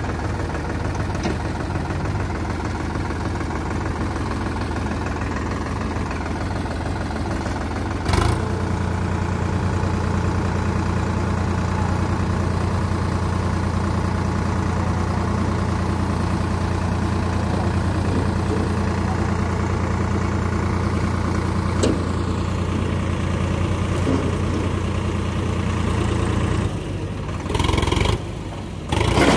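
Sonalika Sikandar DI 50 RX tractor's 52 hp diesel engine running steadily. After a click about eight seconds in it runs harder and louder while its hydraulics tip the loaded trailer to dump soil. Near the end the sound drops and jumps abruptly.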